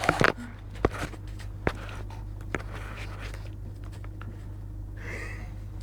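Scattered sharp clicks and rustles over a steady low hum. The clicks are densest at the start, then come singly about one, two and two and a half seconds in.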